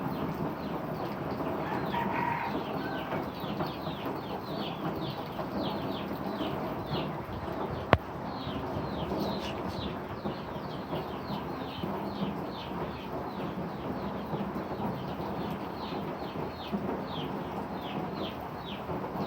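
Steady rain with birds chirping over it in quick, repeated, short falling calls, about two or three a second, and one sharp click about eight seconds in.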